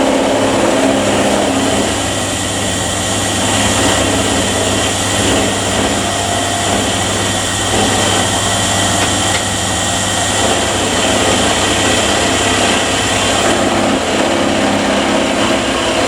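A handheld power tool running steadily with a high whine, working on the cast aluminium belt buckle to clean and polish it.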